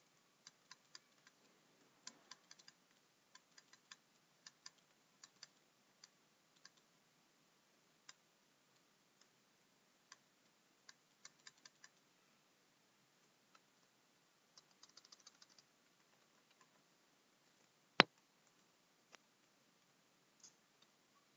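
Computer keyboard typing: scattered single keystrokes and short runs of key clicks, with one much louder sharp click near the end.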